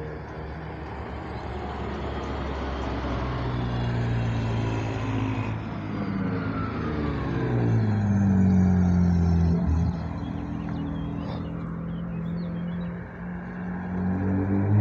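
Hill-climb race cars driving past one after another in the return convoy down the course, each engine note rising and then falling in pitch as it passes. The loudest car goes by about eight seconds in, and another approaches near the end.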